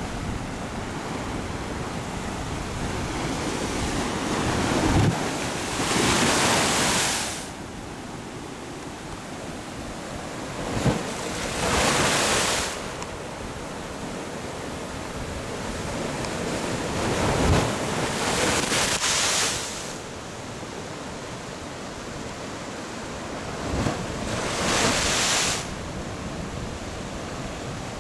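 Sea waves surging into a small coastal blowhole over steady surf, four times about six seconds apart: each surge opens with a short thump and then a rush of water and spray lasting a second or two. The sea is calm, so the jets are only small spurts.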